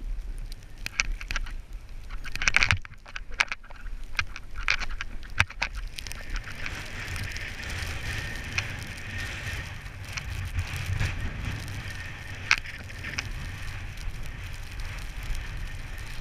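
Snow hissing under a downhill skier's gear, with wind rumbling on the helmet camera's microphone. A run of sharp clicks and knocks fills the first few seconds, after which the hiss settles steady.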